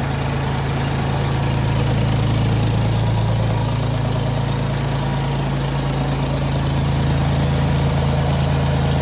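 1972 Ford 2000 tractor's three-cylinder engine idling steadily, with a low, even running note.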